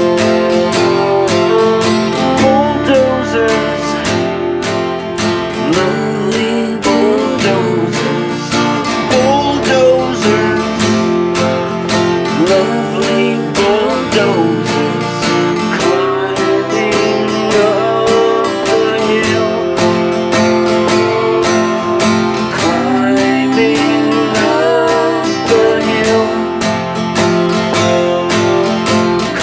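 Instrumental passage of a country-style song: strummed acoustic guitar with a violin playing sliding notes over it.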